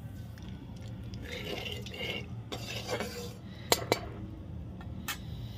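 Metal spatula stirring whole spices in hot oil in a metal kadai, scraping against the pan, with two sharp taps of metal on metal in the second half.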